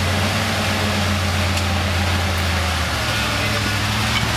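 Modified Jeep's engine running steadily at low, even revs while the Jeep crawls out of a mud hole.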